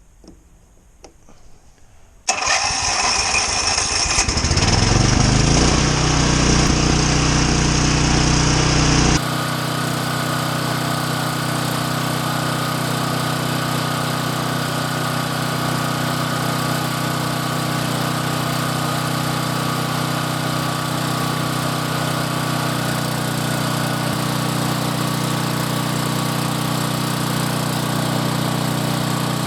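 Troy-Bilt 6200-watt portable generator's engine starting about two seconds in and rising in pitch as it comes up to speed. It then runs steadily on a test run, with an abrupt change in the sound about nine seconds in.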